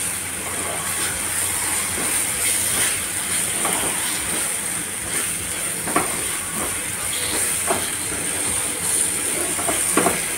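Chopped nuts and ground dates frying in ghee in a nonstick pan: a steady sizzle, with a silicone spatula stirring and scraping the pan, giving a few sharp clicks, most plainly about six seconds in and near the end.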